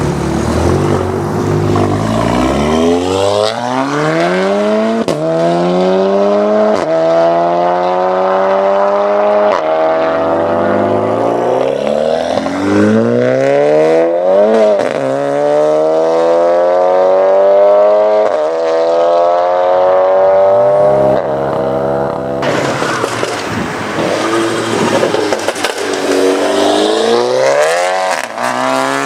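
Tuned Seat Leon ST Cupra's turbocharged four-cylinder engine through a custom exhaust, accelerating hard. The engine note climbs again and again as it pulls through the gears, with a sharp crack at several of the shifts. About three quarters of the way in, a louder rushing noise takes over, and the revs climb once more near the end.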